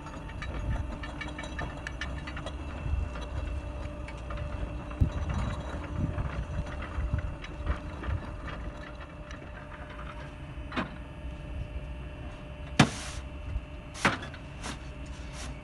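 Concrete block-making machine running: a steady motor hum under continual metallic rattling and clatter. A few sharp metal clanks come in the last few seconds, the first, about thirteen seconds in, the loudest.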